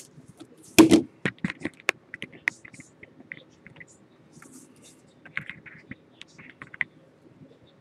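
A box of Panini Crown Royal football cards being handled and opened by hand: scattered sharp clicks, crackles and scrapes of wrapper and cardboard, the loudest click about a second in.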